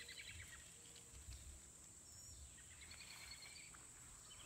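Near silence: faint rural outdoor ambience, with a faint rapid trill that ends about half a second in and a second one about two and a half seconds in.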